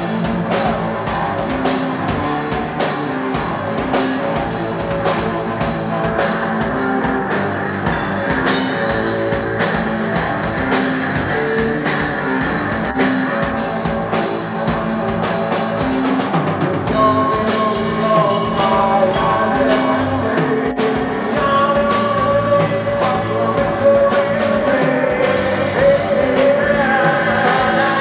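Live stoner/funk rock band playing, recorded from the room: a drum kit keeps a steady beat under bass and guitar. About halfway through, a new melody line comes in, and a man is singing by the end.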